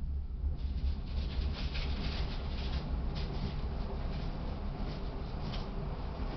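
S-Bahn train running along the track, heard from inside the carriage: a steady deep rumble with irregular rattling and clicking over it from about half a second in.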